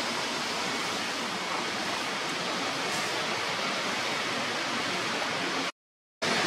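A steady, even hiss that cuts out completely for about half a second near the end, then returns slightly louder.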